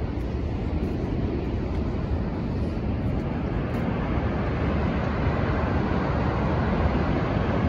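Steady rushing of water falling at Niagara Falls, a thick even noise with a heavy low rumble, growing slightly louder in the second half.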